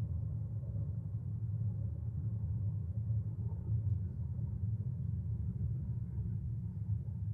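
A steady low rumble with no clear events.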